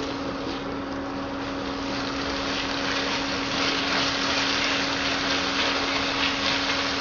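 Chopped tomato and onion sizzling in a non-stick pan as it is stirred with a silicone spatula, over the steady hum of an induction cooktop's cooling fan.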